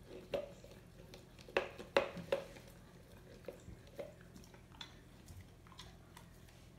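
Golden retriever licking yogurt out of a plastic tub: irregular wet smacks and clicks of the tongue, thickest around two seconds in, then sparser.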